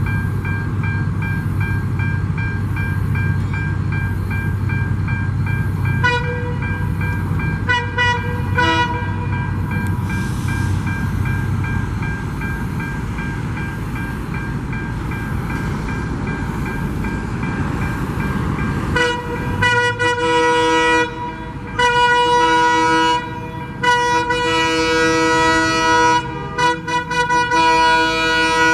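Diesel passenger train approaching with a steady low rumble, then the Dalian CKD8H locomotive's horn sounding in several long blasts with short breaks over the last ten seconds.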